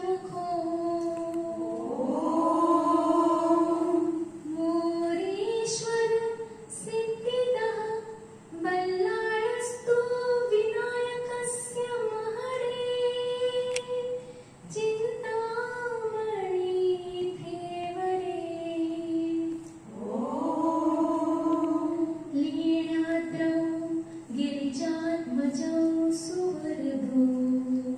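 A woman singing a devotional Ganesh song unaccompanied into a microphone, in long held notes that slide up and down in pitch, with short breaks between phrases.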